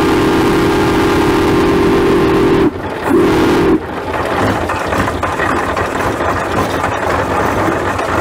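Steam whistle on a 1920 Huber steam traction engine: one long blast that cuts off about two and a half seconds in, then a short second blast. After that the engine keeps running with a steady mechanical noise.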